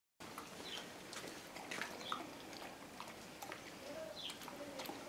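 Faint sounds of a dog eating kibble out of shallow water in a plastic paddling pool: scattered small clicks of chewing and lapping, with short bird chirps now and then in the background.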